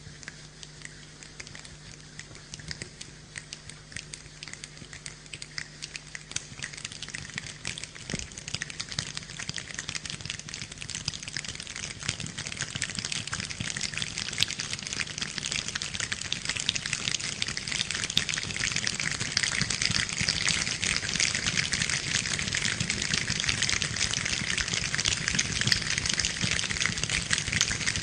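Rain falling, building steadily from a light patter of separate drops to a heavy, dense downpour.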